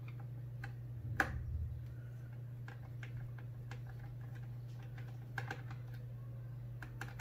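Scattered light clicks and taps of a screwdriver backing screws out of an MSI GE75 laptop's plastic bottom panel, the sharpest about a second in, over a steady low hum.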